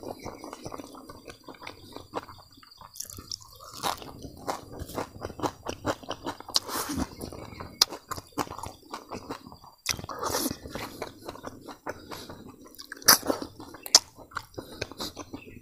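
Close-up mouth sounds of a man eating by hand: open-mouthed chewing with irregular wet smacks and clicks as he eats rice and crispy fried grasshoppers.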